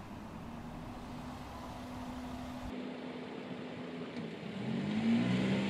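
Road traffic: a bus engine running steadily as it approaches, then after a sudden cut a vehicle engine accelerating with rising pitch near the end, which is the loudest part.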